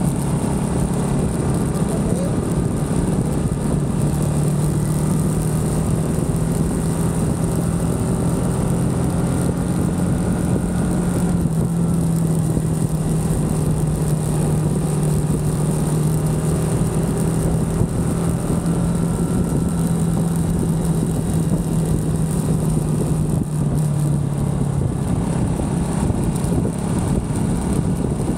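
Small motorcycle's engine running steadily at cruising speed, heard from the rider's position, its low note holding nearly level under a steady rush of road noise.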